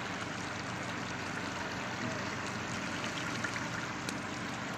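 Fish pieces cooking in a large steel pot, a steady sizzling and bubbling with a few faint pops in the second half.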